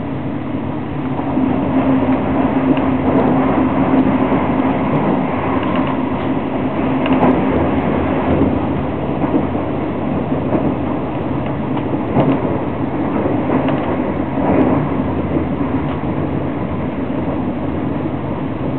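SBB Intercity train running along the track, heard inside the passenger carriage: a steady rumble of wheels on rails with a low hum through the first half, and a few sharp knocks.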